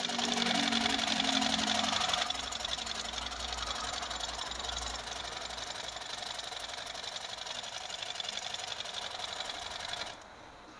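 Butterfly sewing machine running at speed, stitching through thick fabric folded in several layers in a strength test. It gives a fast, even mechanical rattle, loudest for the first two seconds, then runs a little quieter and steady until it stops abruptly shortly before the end.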